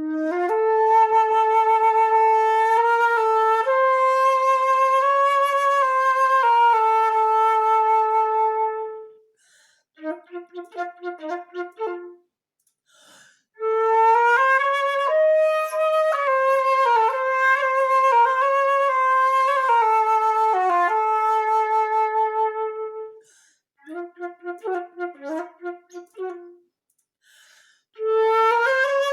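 Unaccompanied solo flute playing long held, gently bending notes in its middle register. These alternate twice with short, softer figures of quick repeated notes, with brief pauses between the phrases.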